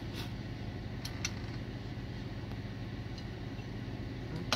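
A steady low mechanical hum, with a few faint clicks about a second in from an RV entry door's latch-and-lock assembly being handled and turned over, and a sharp, louder clack right at the end.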